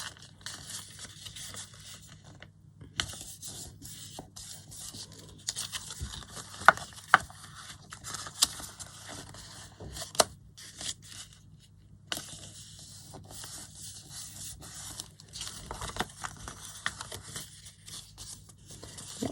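Paper and card being handled at a craft table: rustling and scraping, with a few sharp clicks.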